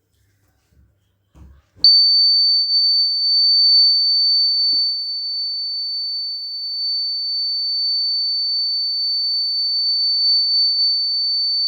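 Small buzzer sounding one steady, high-pitched tone that switches on abruptly about two seconds in. It is the alarm going off: the tubelight starter, heated by a candle flame, has closed its bimetallic contacts and completed the 9-volt buzzer circuit.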